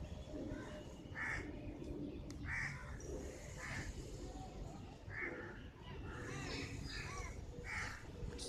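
A bird giving short, harsh calls about once a second, with other birds chirping around six to seven seconds in.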